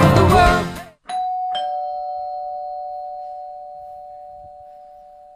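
A pop song with a steady beat stops abruptly about a second in, followed by a two-tone ding-dong doorbell chime: a higher note then a lower one, both ringing out and fading slowly.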